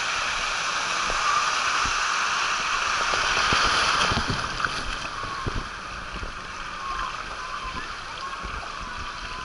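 Water rushing down the Mali Tornado open water-slide flume as a rider slides down it, loud at first and easing about four and a half seconds in, with scattered low thumps from the ride.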